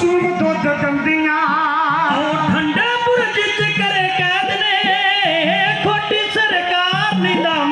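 Punjabi devotional song played over a DJ sound system: a melodic interlude without sung words, its lead line wavering with strong vibrato over a sustained low accompaniment.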